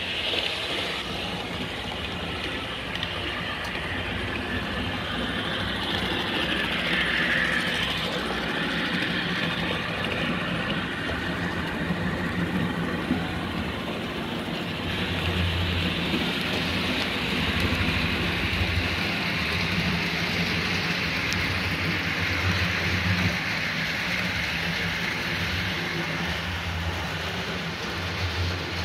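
Model train running on a layout's track: a steady rolling noise of wheels on the rails over a low motor hum, the hum growing stronger and uneven about halfway through.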